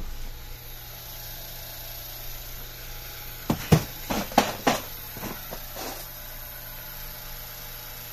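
Steady low hum of an idling vehicle engine, with a handful of sharp knocks and clatters in the middle.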